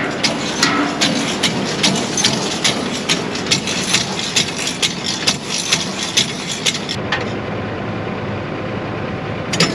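Forage harvester running behind its tractor, with a sharp metallic click repeating about two or three times a second over the steady engine hum. The clicking stops about seven seconds in while the engine keeps running, and one more click comes near the end. The clicking is traced to a broken tooth on the harvester's pickup.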